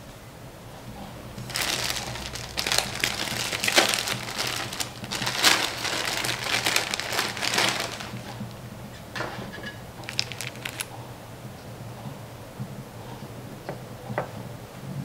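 Clear plastic bread bag crinkling loudly for about six seconds as a hand reaches in and pulls out slices of bread, followed by a few light clicks.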